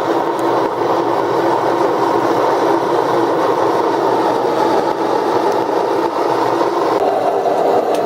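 A blacksmith's forge running: a loud, steady, even rush that does not change.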